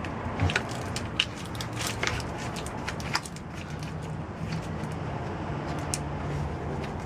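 Irregular light clicks and knocks from hand work on scrap microwave transformers, thickest in the first few seconds, over a steady low hum.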